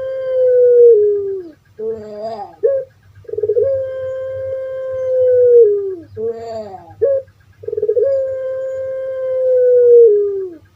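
Puter pelung dove (ringneck dove, Streptopelia risoria) calling three times: each call is a short gurgling phrase followed by a long drawn-out coo, held steady for two to three seconds and sliding down at the end.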